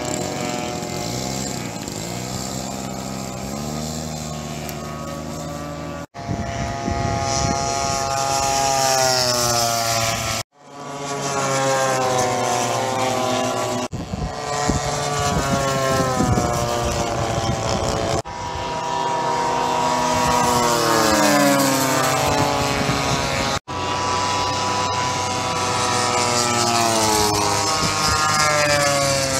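Engine and propeller of a radio-controlled model warbird: it runs steadily, then rises in pitch, and then makes a series of low fly-bys, each with a note that falls in pitch as the plane passes. The sound breaks off abruptly several times.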